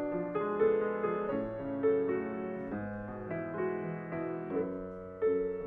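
Grand piano played solo: a classical passage of sustained chords and melody notes, a new note or chord struck every half second or so, with a few firmer accents.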